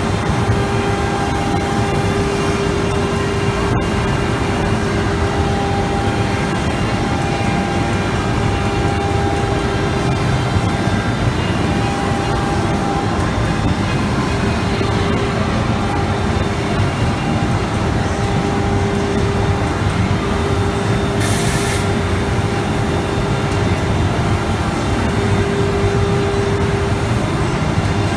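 ATC CNC router spindle running and milling MDF door panels: a steady whine over dense, continuous machine noise, with a short hiss about three-quarters of the way in.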